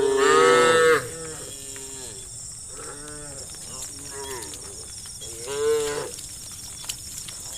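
Several cows mooing in turn: a loud moo in the first second, quieter moos after it, and another loud moo about five and a half seconds in.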